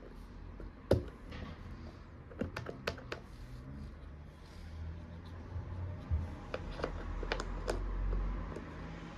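Small hard toy kitchen pieces being handled: irregular light clicks and taps, the sharpest about a second in, over a low hum.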